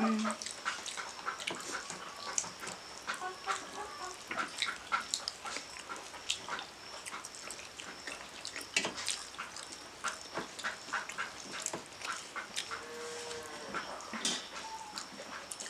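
Close-up eating sounds: chewing and lip smacking, with fingers working rice and chicken on metal plates, a steady run of short sharp clicks. Near the end a calf lows briefly.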